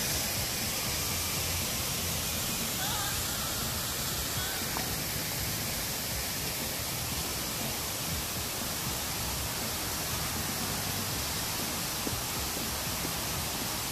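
Steady rushing noise, even and unbroken, with no distinct events in it.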